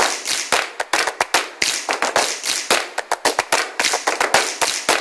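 Hand claps in quick, uneven succession, several a second, each sharp with a short ringing tail.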